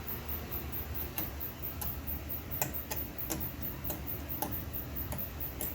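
Light, sharp clicks, about nine of them at uneven intervals, over a steady low hum.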